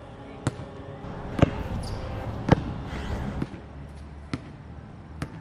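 Basketball being dribbled on a hard court: six separate bounces about a second apart, with the second and third the loudest.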